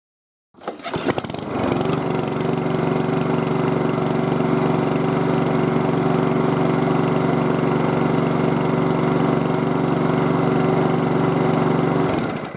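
Small four-stroke lawn mower engine coming in unevenly about half a second in, then running at a steady speed, its carburetor just cleaned and refitted after a winter stored outside. It cuts off suddenly near the end.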